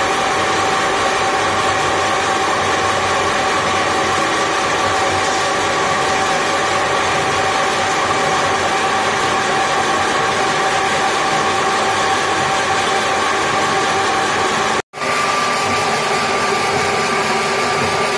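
Charcoal briquette screw extruder running: a steady mechanical whine and rush from its electric motor and extrusion screw. The sound cuts out for an instant near the end and resumes with a slightly higher whine.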